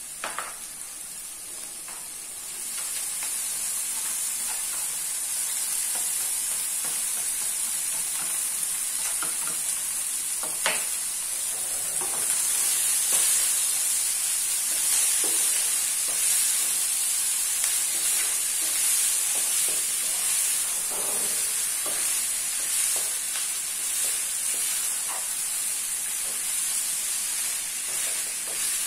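Cooked white hominy frying in hot dendê palm oil with onion and dried shrimp, sizzling steadily while a wooden spoon stirs it with frequent light knocks and scrapes against the pan. The sizzle gets louder about three seconds in, once the hominy is in the hot oil.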